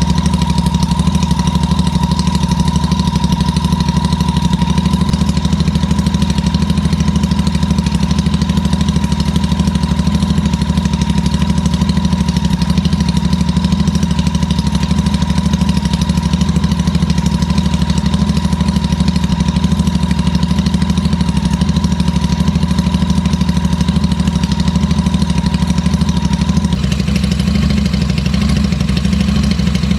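Royal Enfield Super Meteor 650's parallel-twin engine idling steadily with both stock exhausts removed, so it runs out of the open header pipes with a loud, raw sound. A thin steady whine above the engine note drops away near the end.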